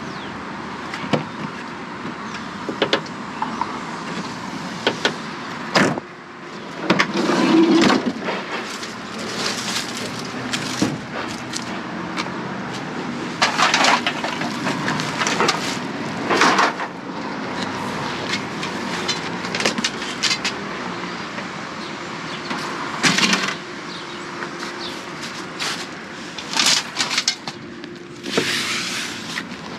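Scrap metal being unloaded, clattering and crashing in irregular bangs over a steady mechanical rumble.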